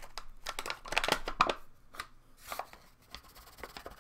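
Paper bag of all-purpose flour being unrolled and handled, crinkling and rustling in a quick run of crackles that is busiest in the first two and a half seconds and thins out after.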